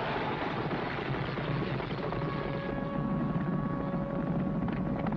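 Film soundtrack of a horse-drawn carriage chase: a loud, steady rumble of wheels and hooves under dramatic orchestral music, which holds a sustained note from about two seconds in.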